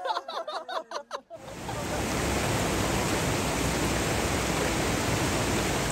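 A short musical phrase fades out with echoing notes, then a steady, even rushing noise starts about a second and a half in and holds at a constant level.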